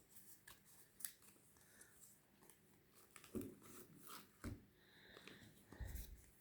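Faint rustling and light clicks of paper and card packaging being handled, with a few slightly louder handling knocks.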